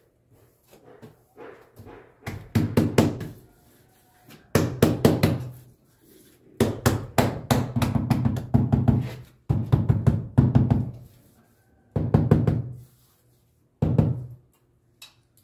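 Rubber mallet tapping a ceramic wall tile, bedding it into fresh tile mortar on a brick wall. The taps come in about six bursts of rapid knocks with short pauses between, each knock a dull thud against the tile.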